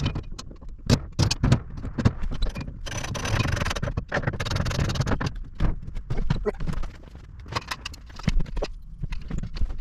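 Metal storage-rack brackets clinking and knocking against the rack's uprights as they are hung and adjusted, with a scraping stretch of about two seconds in the middle.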